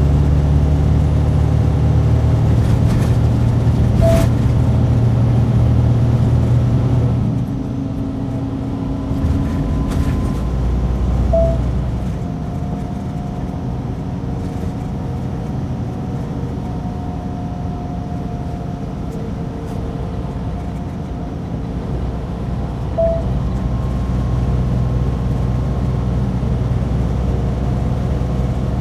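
Semi truck's diesel engine and road noise heard inside the cab while driving, a steady low drone whose note and level drop about seven seconds in and pick up again near the end. Three short high blips stand out over it.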